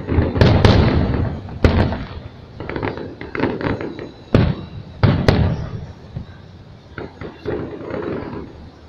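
Aerial firework shells bursting: sharp booms about half a second in and at about a second and a half, then a run of smaller quick pops, then two more booms around four and five seconds. A low rumble trails each boom.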